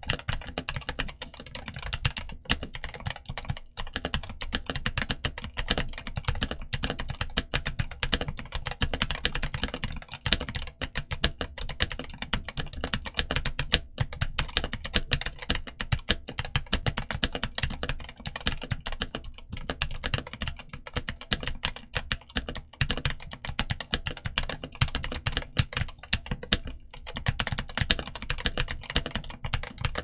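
Continuous typing on a Redragon K685 mechanical keyboard with RD Red switches and DS OEM keycaps: a fast, dense run of keystroke clacks, broken by a few brief pauses.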